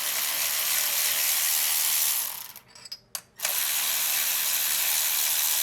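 Hand ratchet wrench clicking quickly in two runs of about two seconds each, with a short pause between them.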